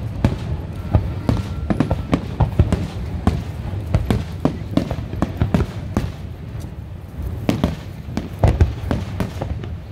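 Aerial fireworks shells bursting in a rapid barrage, several bangs a second over a continuous low rumble of overlapping explosions.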